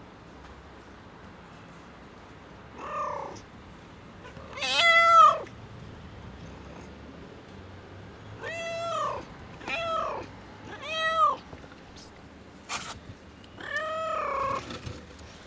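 A pregnant cat in difficult labour meowing repeatedly: six drawn-out calls, each rising and falling in pitch, the second the loudest and the last the longest. There is also one short burst of noise.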